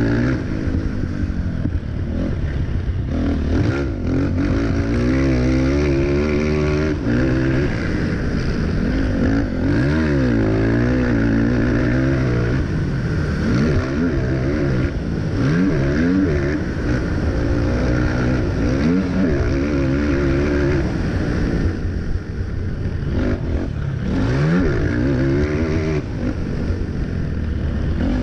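Race quad (ATV) engine heard from on board at racing speed, its pitch climbing and falling again and again as it accelerates down the straights and backs off for the turns.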